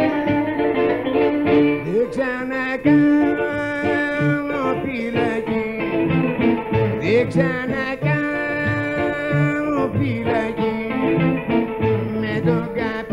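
Greek rebetiko song played on bouzouki with a small string band strumming a steady accompaniment, and a man singing over the plucked melody.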